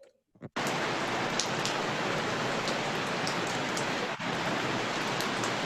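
Recorded rainfall played back as a sound effect: a steady hiss of rain with scattered drop ticks, starting about half a second in, with a brief drop-out around four seconds.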